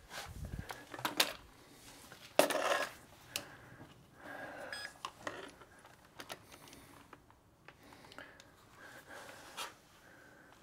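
A camera on a gimbal being picked up and handled after a dog knocked it over: a low thud at the start, scattered clicks and knocks, and a louder clatter about two and a half seconds in, then lighter rustling and tapping.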